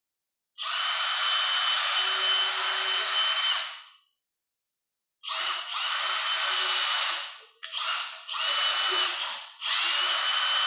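Cordless drill boring pilot holes into a timber architrave, so the screws for a roller blind bracket won't split the wood. The drill runs in four spells, the first about three seconds long, with short pauses and a brief blip between them.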